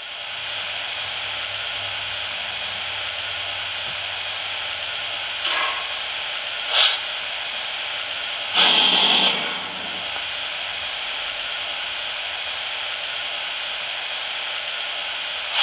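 Lionel Disney Berkshire's RailSounds system playing a standing steam locomotive: a steady hiss of steam, with two short puffs about five and a half and seven seconds in and a louder release of steam lasting about a second, roughly eight and a half seconds in.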